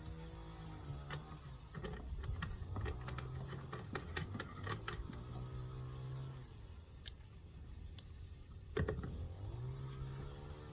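Scattered light metallic clicks and clinks of service-valve caps being put back on and tightened on the line-set valves after the refrigerant charge is released, busiest in the first half with a sharper click near the end.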